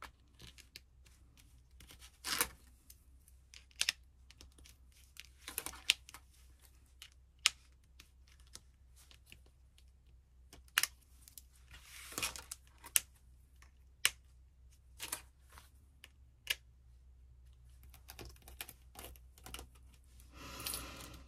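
Irregular light clicks and taps of thin metal cutting dies being picked up and set down, with a few brief rustles in between.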